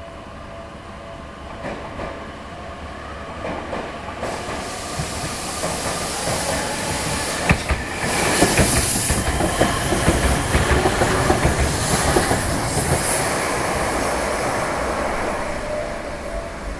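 Train passing: a rushing, clattering noise that swells about four seconds in, with sharp clacks around the middle, and eases toward the end.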